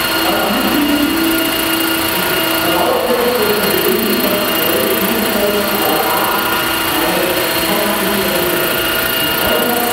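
Large-scale radio-controlled Bell 206-style helicopter hovering low, its drive and two-blade main rotor making a steady, even whine with several constant high tones.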